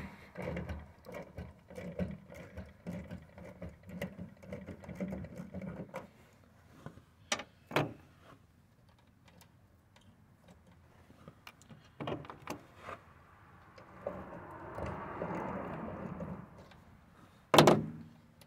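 Hand wrench work on the mounting bolts of a motorhome's emergency start solenoid: rapid ratchet-like clicking for about six seconds, then a few scattered sharp metal clicks. A short rasping scrape comes a few seconds before the end, followed by one loud clank of metal.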